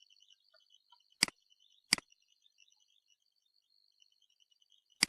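Three sharp, isolated clicks from someone working at a computer: two under a second apart, then a third about three seconds later.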